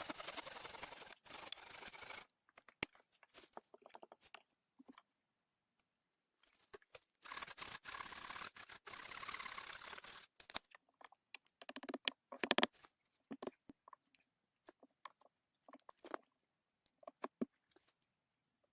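Faint intermittent handling sounds: two stretches of soft scraping or rustling, then scattered light knocks and clicks, the strongest a little past the middle.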